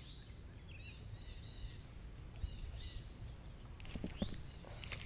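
Small birds singing with short, repeated chirping phrases over a steady low rumble. A few sharp clicks come about four seconds in.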